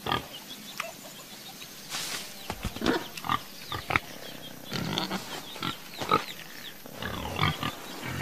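A series of short animal vocal sounds from a cartoon soundtrack, coming in separate bursts every half second to a second, some of them sharp and click-like.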